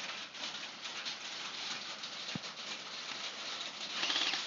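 Heavy rain pattering steadily, with a single short knock about two and a half seconds in.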